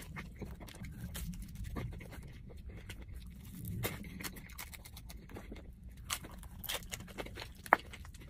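Close-up mouth sounds of eating pizza: chewing, smacking and finger-licking, made up of scattered wet clicks, with one sharp click near the end, over a low steady hum.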